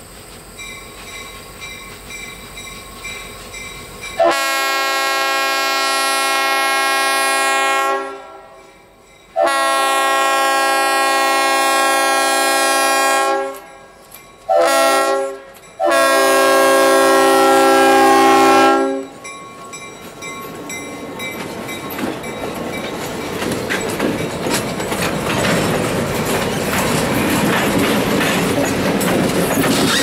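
A diesel locomotive's Leslie RS-5T five-chime air horn sounds the grade-crossing signal as a chord: long, long, short, long. After the last blast the locomotive and its train run past close by, the rumble growing louder toward the end.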